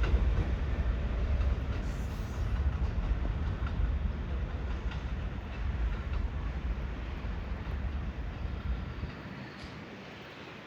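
New York City subway train running along the track and moving away, its low rumble fading steadily over the seconds until little is left but faint wind noise.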